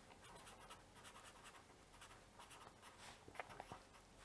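Faint scratching of a felt-tip pen on paper, writing out a word in many short strokes, with a few slightly louder strokes a little over three seconds in.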